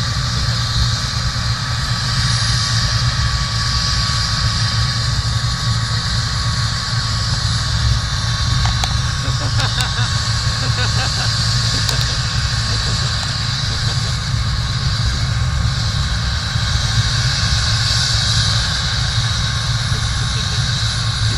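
Helicopter engine and rotor noise: a loud, steady low drone with a hiss over it that does not change.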